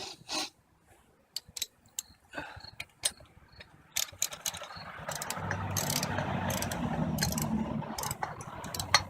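Hand work on metal exhaust parts: scattered sharp metallic clicks and knocks, then about three and a half seconds of steady rough rasping of metal on metal, starting about four seconds in.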